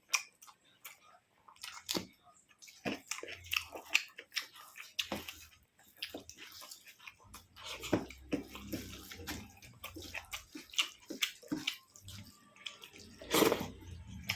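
Close-up eating sounds: wet squelching and chewing of a rice meal with vegetable curry, in many short, uneven clicks and smacks. One louder smack comes near the end.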